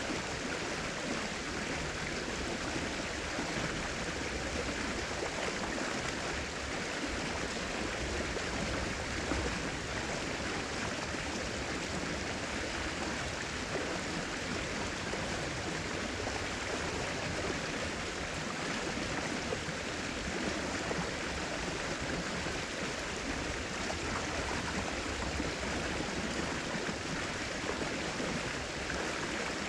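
River water rushing and flowing steadily, an even, unbroken rush.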